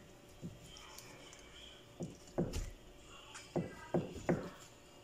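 Kitchen knife slicing through a raw whole chicken and striking the cutting board beneath: several dull knocks, most of them in the second half.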